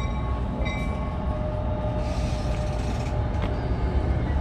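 Commuter train moving out of the station with a steady low rumble. A short high ringing tone repeats about every three-quarters of a second at the start, and a brief hiss and a few clicks come around the middle.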